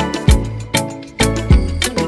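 Upbeat background music with a steady driving beat, drum hits about every half second over bass and pitched instruments.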